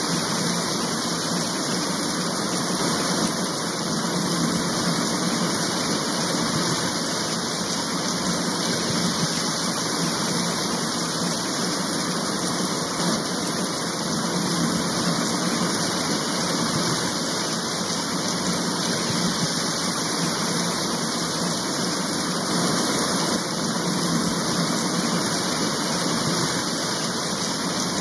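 Steady rain, a dense continuous hiss with no letting up.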